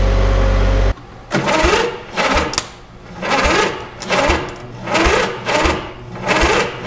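A steady low hum that cuts off suddenly about a second in, then a handheld power tool whirring in short repeated bursts, about one a second, each rising in pitch as it spins up, while the starter is being unbolted from a riding mower engine.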